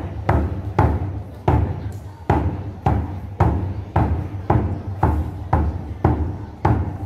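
Vietnamese school drum, a wooden barrel drum, beaten with a stick in a steady run of booming strokes, a little under two a second, each ringing on into the next. This is the ceremonial drumming that opens the new school year.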